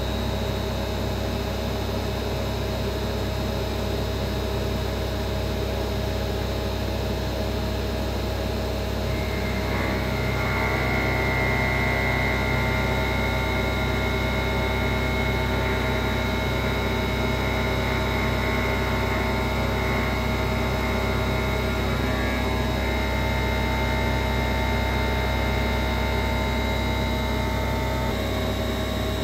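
Grawostar CNC Master engraving machine milling an aluminium plate: a steady machine hum with several steady tones. About ten seconds in, a higher steady tone joins and it gets slightly louder, then the higher tone drops away shortly before the end.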